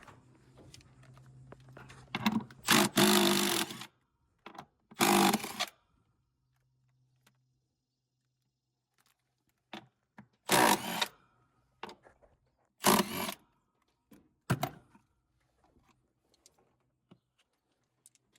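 A handheld power tool, such as a drill/driver, run in five short bursts of about a second each, with pauses between them.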